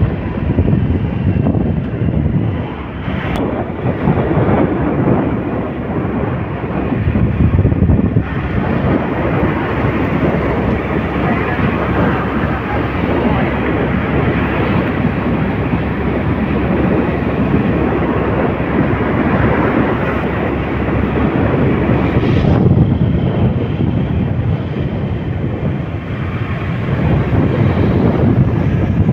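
Wind buffeting the microphone on a moving motorbike, with the steady engine and road noise of the ride underneath.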